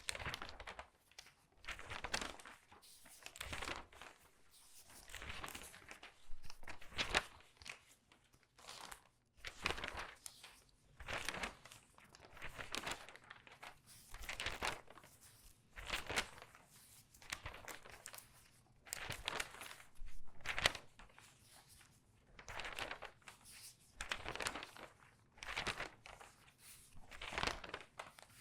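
Newspaper pages being turned quickly, each turn a crinkly rustling swish, about one every second and a half.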